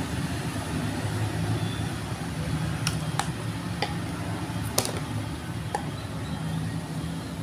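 A few short, sharp plastic clicks from a squeeze bottle of chili sauce as its flip cap is snapped shut and the bottle is set down, over a steady low background rumble.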